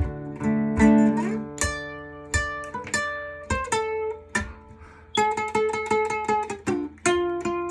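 Instrumental music without vocals: an acoustic guitar picks a single-note melody, each note plucked and ringing out. About five seconds in the notes come quicker, as a run.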